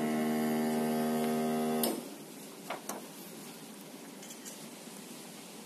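Sublimation heat press machine humming steadily, then switching off abruptly about two seconds in. A couple of faint clicks follow.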